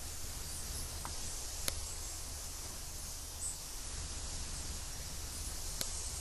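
Steady outdoor background hiss over a low rumble, broken by two short sharp clicks, one about a second and a half in and one near the end.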